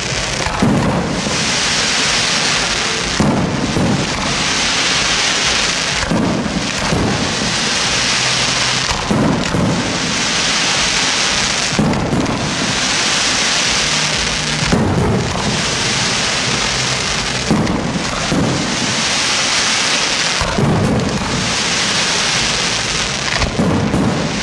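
Aerial firework shells bursting about every three seconds, nine in all. Each bang is followed by a long, dense crackling hiss from the burning stars.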